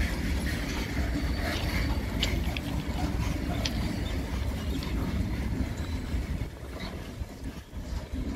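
Freight train of covered goods wagons rolling past, a steady low rumble with a few short high wheel clicks and squeaks. It grows quieter near the end as the brake van at the rear of the train goes by.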